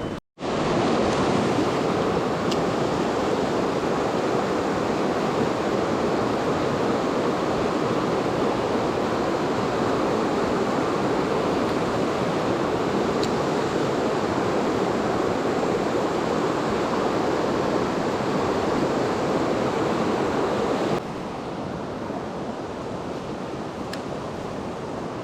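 Mountain stream rushing over rocks, a steady hiss of running water. It cuts out for a moment near the start and comes back, then steps down to a quieter level late on.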